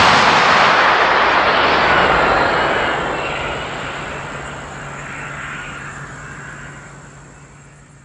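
Defense missile launch: the rocket motor's loud rushing blast right after ignition, dying away steadily over several seconds as the missile flies off, almost gone by the end.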